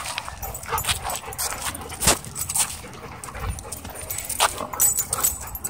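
Dogs playing at close range: short, irregular dog sounds mixed with quick scuffling noises.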